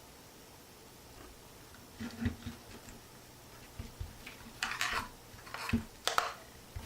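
Parts packaging being handled and opened: light rustling with a scatter of small knocks and taps, starting about two seconds in.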